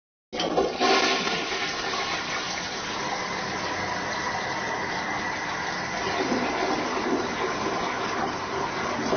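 Toilet flushing: the rush of water starts abruptly and runs on steadily.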